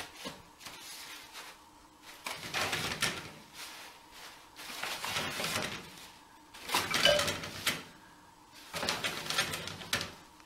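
Toilet paper rustling and running off its roll as a kitten pulls it down, in four bursts about two seconds apart, each lasting about a second.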